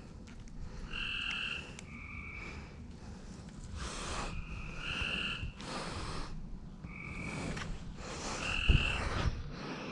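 Frogs calling: short two-toned calls repeating every second or two, with a few brief bursts of hiss and a single thump near the end.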